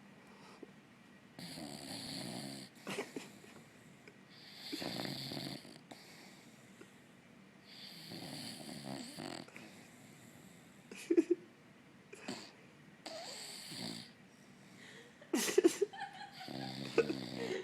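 A puggle snoring while asleep: about five long, rough snores, one every three to four seconds. A few short, sharper sounds come between them, the loudest near the end.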